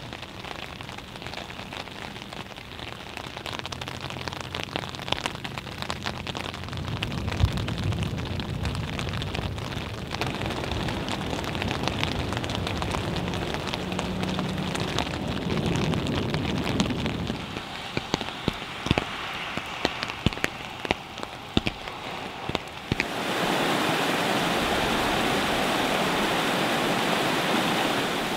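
Heavy rain falling and spattering on wet pavement and water, with close drops clicking sharply and a low rumble underneath for the first half. About 23 s in, it cuts to the louder, steady rush of churning brown floodwater.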